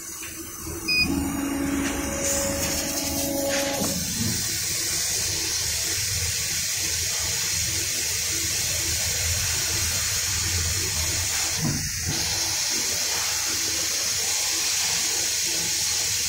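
Steady rushing hiss of air from a running blower, such as a laser cutting machine's fan. It comes in about a second in, with a brief dip near twelve seconds.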